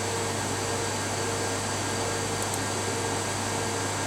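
Steady whirring hum of a running fan, with a faint high tone that fades out about halfway through and a couple of faint clicks.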